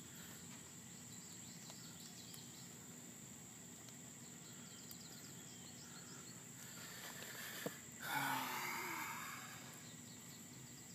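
Steady high-pitched insect drone, with a brief louder rush of noise about eight seconds in.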